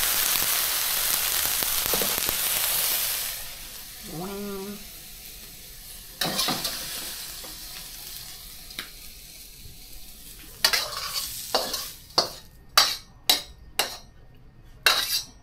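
Crab meat and holy basil stir-frying in pork lard in a hot pan, sizzling loudly for about three and a half seconds before dying down. Near the end a run of sharp clinks of utensils on dishes, about two a second.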